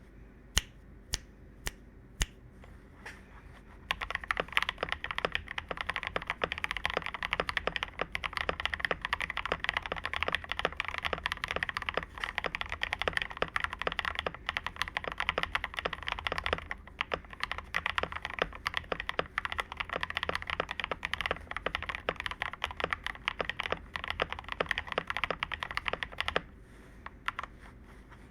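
Typing on a Tester68 mechanical keyboard with lubed Akko CS Crystal Blue switches, lubed plate-mount stabilisers and XDA-profile keycaps: a few single keystrokes, then fast continuous typing from a few seconds in, with a short pause near the end.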